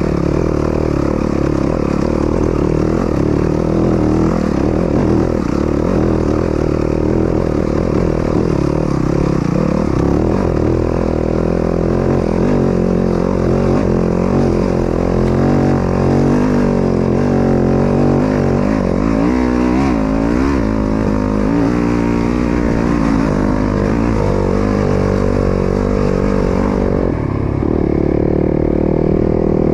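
Dirt bike engine running steadily loud, its pitch rising and falling with the throttle. It sweeps up and down several times around twenty seconds in.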